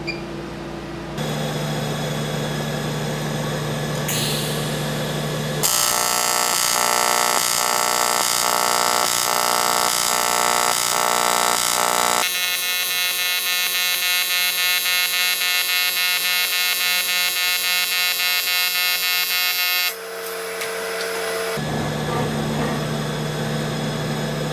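AC TIG welding arc from an HTP Invertig 400 buzzing on thin aluminum, pulsed so that it throbs at a regular beat. Its tone shifts several times along the weld.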